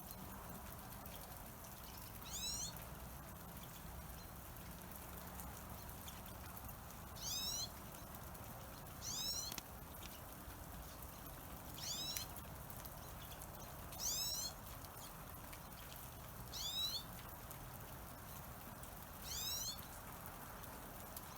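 Small bird giving short, high, sweeping call notes, seven of them spaced a few seconds apart, over a faint steady background hiss.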